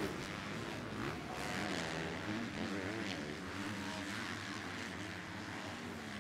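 Several 250cc four-stroke motocross bikes racing, their engines revving, the pitch climbing and dropping with the throttle, overlapping.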